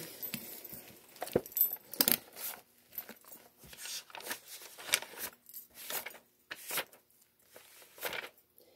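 Irregular rustling and handling noises close to the microphone: short soft scrapes and crinkles, about one or two a second.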